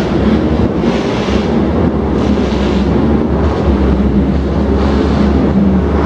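Cars and motorcycles of a circuit parade lap driving past: a steady, dense mix of engine noise with a deep rumble and wind on the microphone.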